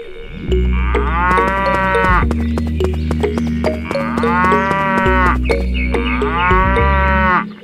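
Cows mooing three times, each moo about a second long, over background music.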